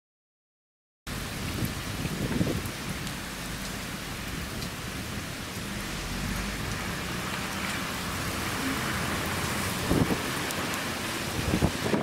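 Heavy typhoon rain pouring steadily onto a flooded road, starting abruptly about a second in. Low gusts of wind buffet the microphone a few times, most strongly near the end.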